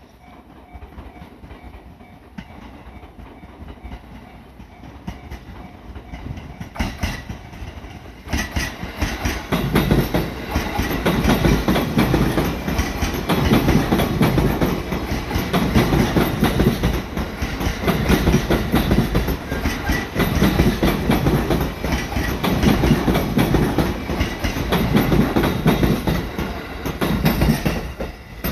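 JR East E233 series electric train approaching and rolling past close by, picking up speed after leaving the station. The wheels clatter over the rail joints in a steady low pulse about every two seconds, which sets in about ten seconds in and fades just at the end.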